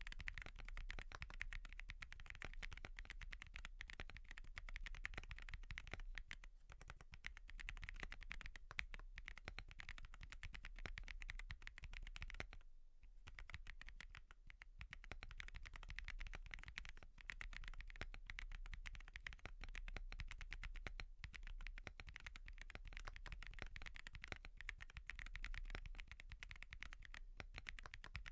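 Steady typing on a Wobkey Crush80 mechanical keyboard with Haimu Midnight switches and no IXPE switch pad: a dense run of keystrokes, with a short pause a little before halfway.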